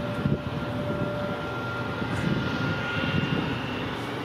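Airbus A321neo jet engines running at taxi power: a steady rumble with a faint high whine whose tone shifts partway through.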